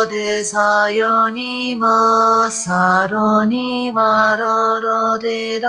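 AI-generated singing from the Bark text-to-audio model: a voice sings a melody of held notes, changing about every half second, over a steady low drone.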